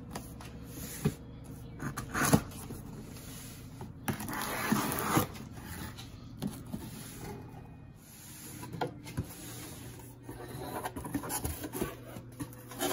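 A cardboard shipping box being opened by hand: scissors slitting the packing tape, then the cardboard flaps pulled apart with scratchy rustles and knocks. Near the end a hand rummages through foam packing peanuts. A steady low hum sits underneath.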